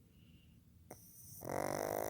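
Pug snoring: one loud, buzzing snore begins about a second and a half in, with a short click just before it.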